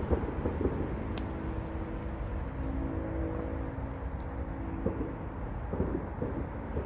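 Steady low hum of motor traffic, with a car engine running steadily for a few seconds in the middle, and a few soft knocks.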